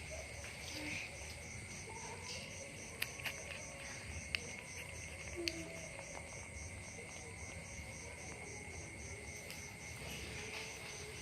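Insects chirping steadily in the background, one of them pulsing at about four chirps a second, with a few short sharp clicks about a third to halfway through.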